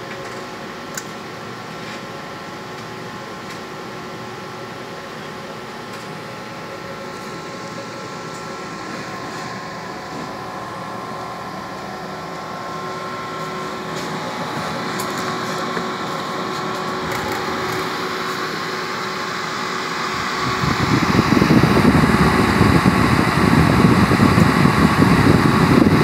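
Biotage Initiator EXP microwave synthesizer's cooling fans running, a steady hum with a whine of several steady tones and a single click about a second in. From about twenty seconds in, a much louder rush of air at the unit's rear fan grille.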